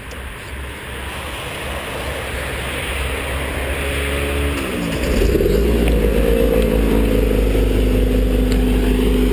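Vermeer SC60TX stump grinder's engine being brought back up to speed. It grows steadily louder for about five seconds, then steps up to a louder, steady run at working speed.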